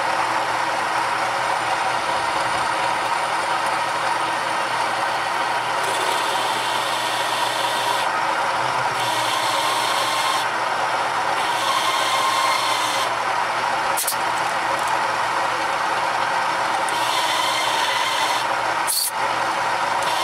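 Bi-metal hole saw, 1-5/8 inch at 250 rpm in a large drill press, cutting through 1-inch-thick steel plate with a steady grinding, scraping noise.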